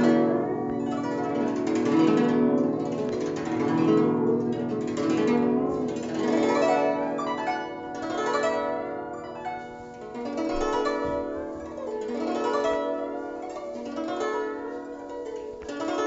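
Guzheng (Chinese zither) played solo: a flowing run of plucked notes that ring and die away, coming in repeated waves.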